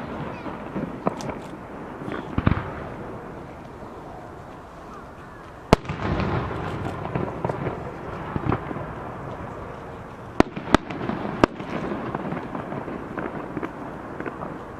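Fireworks display: aerial shells bursting with sharp bangs at uneven intervals. The loudest comes about six seconds in, and three more follow in quick succession around ten to eleven seconds in.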